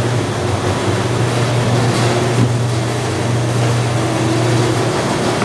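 Commercial electric meat grinder running steadily with a low motor hum and an even mechanical whir as pork is forced through its fine plate, on the third grind.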